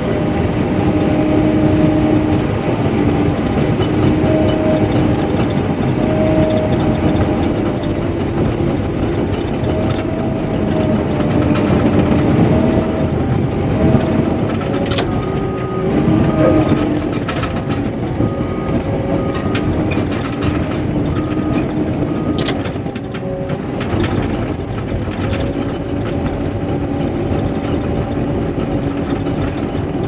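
Cat D5K LGP bulldozer's diesel engine running under load with its steel tracks clanking as it pushes dirt, heard from inside the cab. A whining tone wavers in pitch, with a few sharp clanks partway through.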